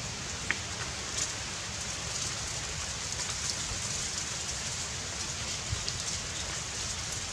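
Steady outdoor hiss with wind rumbling on the microphone and a few faint clicks.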